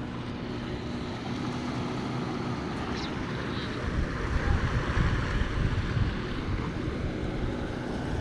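Wind buffeting the phone's microphone over the wash of sea waves breaking on rocks. A faint steady low drone runs under it for the first couple of seconds.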